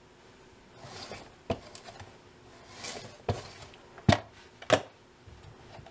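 Zucchini slid along a wooden mandoline slicer's blade under a plastic hand guard: two swishing slicing strokes, each ending in a sharp knock, then two more sharp knocks.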